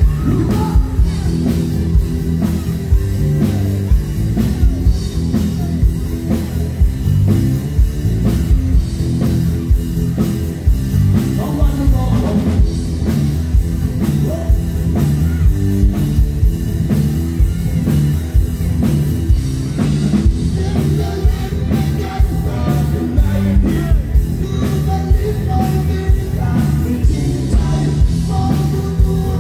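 A live rock band playing a Thai rock song through a PA system: drum kit keeping a steady beat, keyboard, and a male vocalist singing over it.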